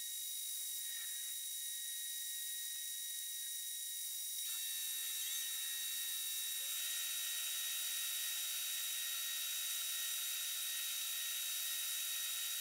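Steady high-pitched whine made of several tones over a hiss. It grows louder and brighter about four and a half seconds in, and a lower tone joins soon after, stepping up in pitch about a second and a half later.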